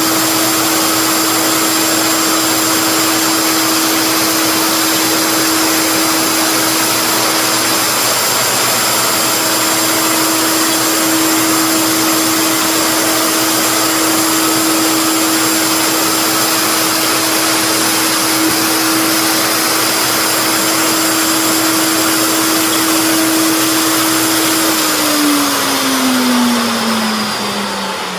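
Wood router running at a steady high speed while routing a mortise, with a constant whine; near the end it is switched off and the whine falls in pitch as the motor spins down.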